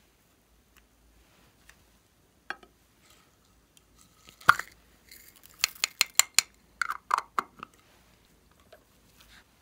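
A small plastic craft container handled and opened with one sharp click, then a quick run of clicks and taps as sequins are shaken out of it onto a glass bowl.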